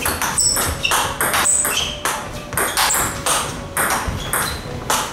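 Table tennis rally: the ball clicking off the rubber-covered bats and bouncing on the table in quick alternation, about three sharp pings a second.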